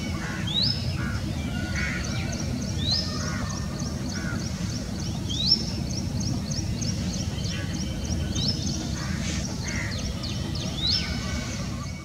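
Birds calling in the open: a short rising whistled call repeats every two to three seconds, and a rapid high ticking runs on throughout. A few harsher calls come in between, all over a steady low rumble.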